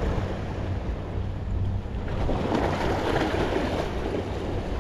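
Wind rumbling on the microphone over small sea waves lapping and washing against the rocks, with a louder surge of wash about halfway through.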